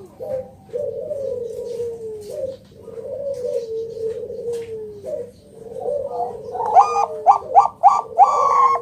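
Zebra doves (Bangkok-type perkutut) cooing: a steady string of falling coos, overlapping. Near the end a louder run of about five short quick notes and a longer one comes in over them.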